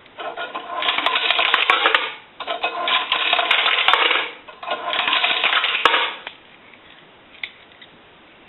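Loose coins (quarters, nickels and dimes) pouring and clinking into a payphone's metal coin box, in three pours of about two seconds each.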